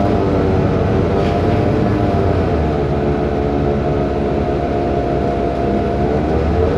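Cummins ISBe turbo diesel engine of a BMC Belde city bus running under way, its note shifting in pitch about a third of the way in and again near the end. The uploader calls this engine sound faulty.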